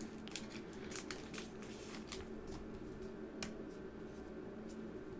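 Faint scattered clicks and light rustles of trading cards being handled and slid against one another, over a low steady hum.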